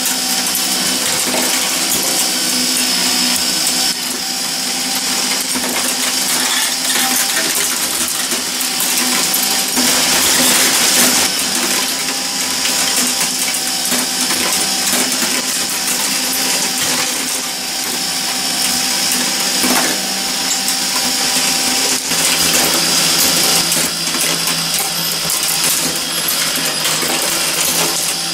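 Meccano marble machine running: its motor and gearing whir steadily while glass marbles roll and click against the metal chutes and lifts.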